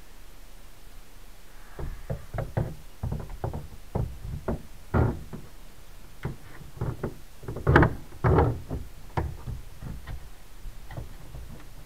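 Floor pump being fitted into a velomobile's tail: a run of irregular knocks and thuds as it bumps against the hollow shell and the brace, starting about two seconds in, the loudest around eight seconds in.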